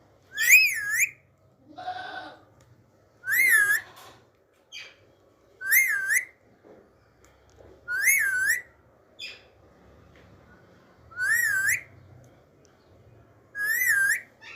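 Alexandrine parakeet whistling the same wavering call six times, one about every two and a half to three seconds. Short faint chirps fall in between, and a lower, rougher call comes about two seconds in.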